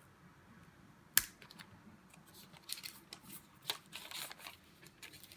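Handling of a smartphone's retail box and packaging: one sharp click about a second in, then light scattered rustles and taps.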